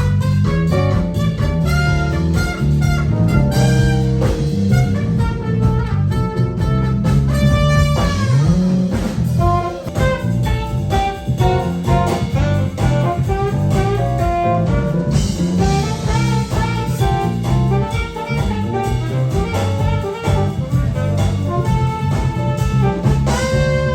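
Live band with horns playing a jazz number, loud and continuous.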